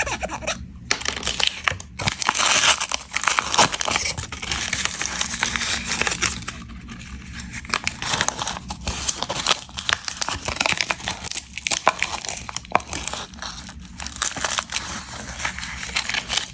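Plastic snack wrapper being crinkled and torn open by hand: dense, irregular crackling rustles with brief pauses.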